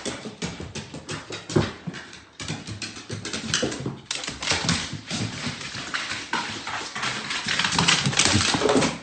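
A dog moving about with its claws clicking and scrabbling rapidly and irregularly on a hard surface.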